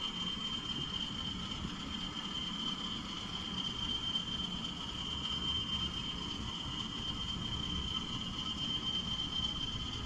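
Steady high-pitched cricket chirring that runs on unbroken, over a low rumble.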